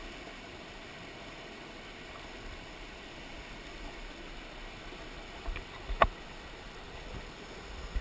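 Mountain stream water rushing and churning over a small rocky cascade, a steady splashing flow. A single sharp knock about six seconds in.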